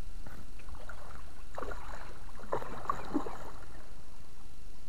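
Water splashing and sloshing in two short clusters through the middle, over a steady low wind rumble on the microphone.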